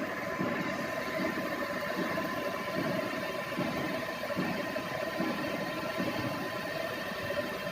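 Tool room milling machine running: a steady mechanical hum with a constant whine, pulsing evenly a little more than once a second.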